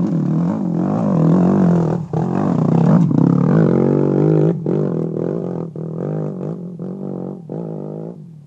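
Enduro motorcycle engine revving under load on a steep climb, its pitch rising and falling with the throttle. After about four and a half seconds it gets fainter as the bike moves away, the throttle opened and closed about every half second.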